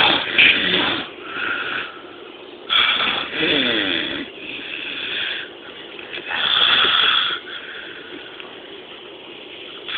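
A man snoring loudly and strangely, with rasping snores coming in uneven swells: three loud ones about three seconds apart and weaker ones between.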